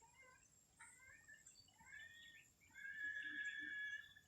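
Birds calling in the morning: several short chirps and warbled notes, then one longer held call in the last second or so.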